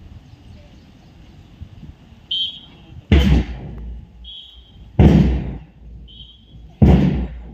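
A whistle gives three short blasts, each answered about a second later by a loud, sudden sound from the massed drilling schoolchildren acting in unison.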